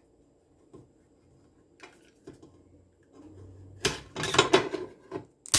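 A blade cutting through the black rubber jacket of a coaxial cable. A few faint ticks come first, then a cluster of loud scraping cuts about four seconds in, and a sharp click at the end.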